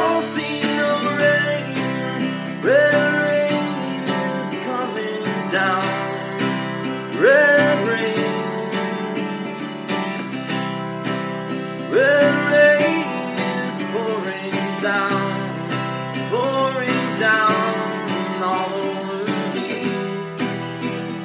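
Acoustic guitar strummed in a steady rhythm, with a rising note that slides up and holds, coming back about every four and a half seconds.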